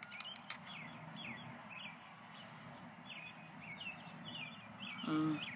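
Small birds chirping repeatedly in short, quick chirps. A few sharp clicks come right at the start, over a low steady hum.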